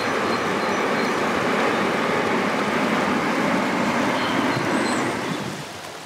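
A train crossing a railway viaduct, a steady rushing rumble that fades away over the last second and a half.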